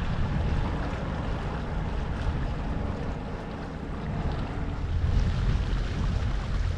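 Wind buffeting the microphone and water rushing along the hull of a catamaran under way, with a deep, uneven rumble that grows louder about five seconds in.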